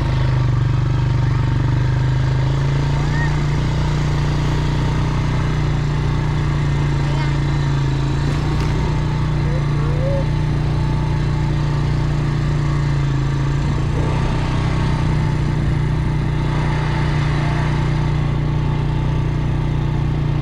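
A motor vehicle's engine running steadily while travelling, with a constant low drone and no change in pace.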